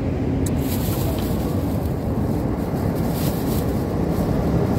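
Steady low rumbling background noise, with a short click about half a second in.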